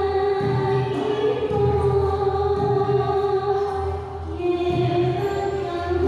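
Javanese jaranan gamelan music: a sustained melody line held on one note that steps down to a lower note about four seconds in, over low drum or gong beats about once a second.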